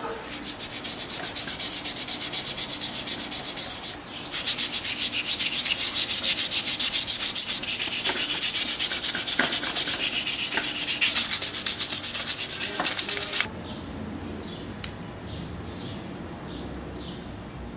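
Sandpaper being rubbed by hand on an aluminum motorcycle triple clamp: wet sanding with 400 grit in rapid back-and-forth strokes, with a short break about four seconds in. The strokes stop suddenly about three-quarters of the way through, leaving only softer, slower rubbing.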